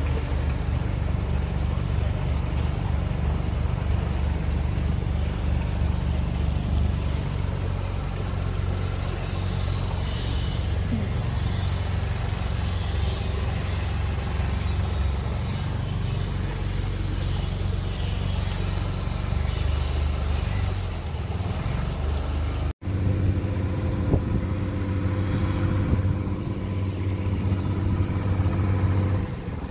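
A houseboat's engine running steadily as the boat cruises, a low droning hum with a hiss of wind and water over it. The sound cuts out for an instant about three-quarters of the way through, then the engine hum carries on.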